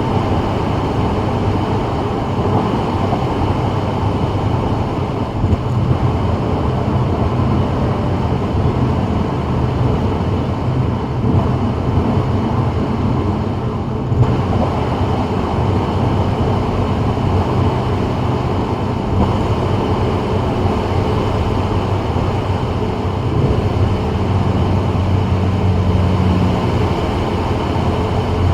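Steady road noise of a 2024 Subaru WRX driving on a rain-wet freeway: tyre hiss with a low drone that stays even throughout.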